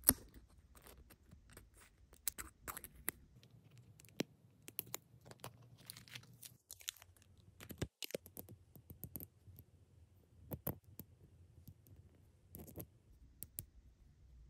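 Long acrylic fingernails clicking and scratching on a miniature cardboard box and clear plastic packaging as it is opened: scattered sharp clicks and crinkles at irregular intervals.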